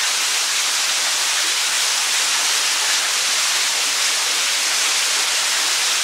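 Small waterfall pouring down a narrow rock chasm and splashing below: a steady, even hiss of falling water.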